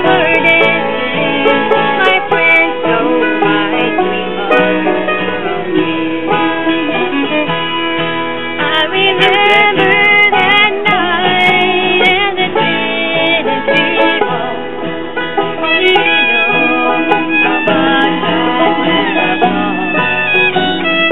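Bluegrass-style string-band music with banjo and fiddle.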